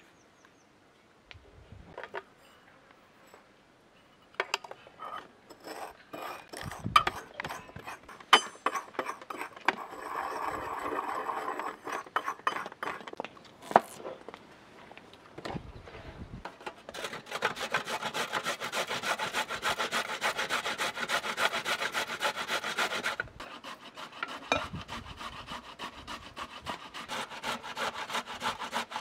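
Sharp knocks of a knife chopping. Then, through the second half, carrots are grated on a metal box grater in quick, even strokes.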